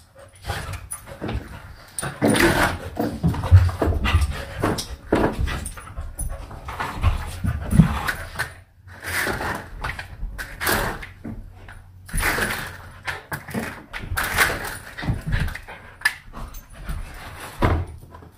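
A dog panting and whimpering, mixed with the rattle and swish of a hand duster slapping wooden window blinds.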